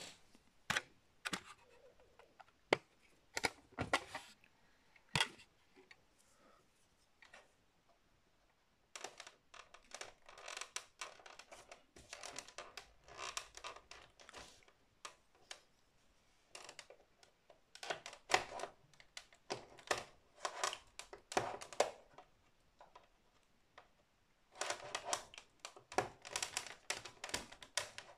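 Irregular clicking and scraping as a metal spatula tool pries the back panel of an Acer Aspire C24 all-in-one computer away from the screen. A few scattered clicks, then several runs of rapid clicking.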